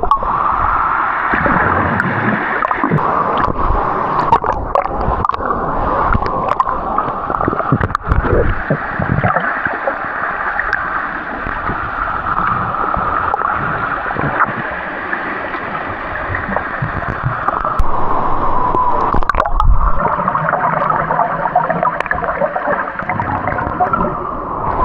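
Water gurgling and sloshing close against the microphone, a dull, muffled rush with scattered small clicks and knocks.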